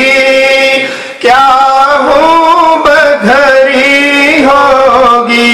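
A man singing an Urdu naat into a microphone, holding long, wavering notes, with a brief breath about a second in.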